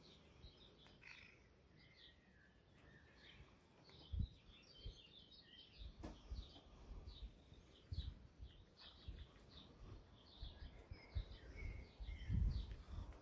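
Small birds chirping over and over in short, high, faint calls, with a few lower sliding notes among them. Occasional low thumps, the loudest near the end.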